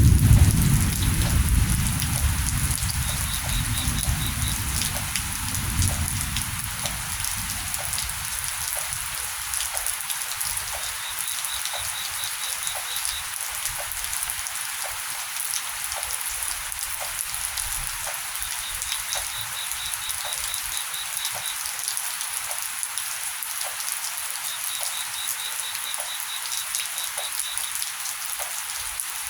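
Steady heavy rain hissing and pattering on surfaces during a thunderstorm. It opens with a low rumble of thunder that fades away over the first six seconds or so. A faint rapid ticking call comes back every several seconds over the rain.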